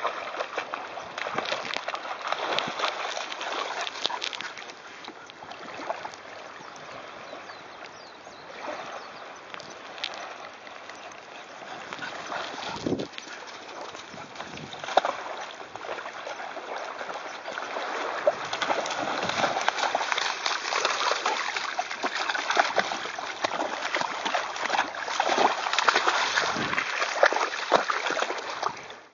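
A dog running and splashing through shallow sea water, a steady wash of choppy splashes that is quieter for a while in the middle and louder in the second half.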